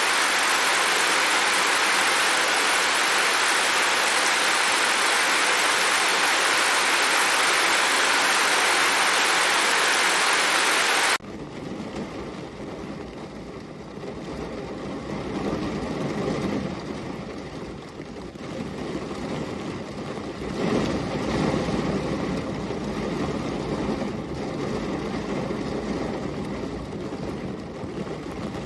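Steady hiss of heavy rain that cuts off abruptly about eleven seconds in, giving way to a quieter, deeper noise that swells and fades unevenly.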